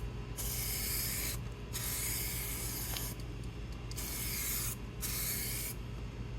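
Clear coat spray can hissing in short bursts, each about a second long, as successive coats are sprayed onto a restored headlight lens.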